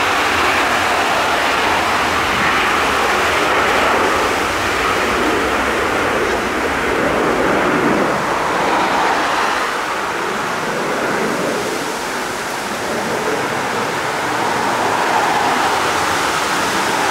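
Bombardier Global 7500 business jet taking off: the loud, steady roar of its two GE Passport turbofans at take-off thrust, easing slightly midway and swelling again near the end.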